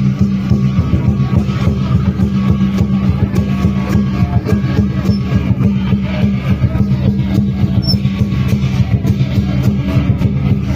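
Loud music with a fast, dense beat over a steady low drone.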